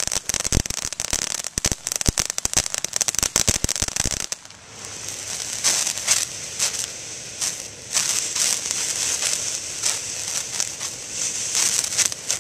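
"Main Squeeze" ground fountain firework spraying sparks, with dense, rapid crackling for about the first four seconds. It then settles into a steady hiss broken by scattered crackles and pops.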